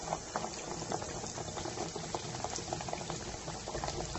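Breaded pork cutlet shallow-frying in oil in a pan over low heat: a steady sizzle with a dense crackle of small pops.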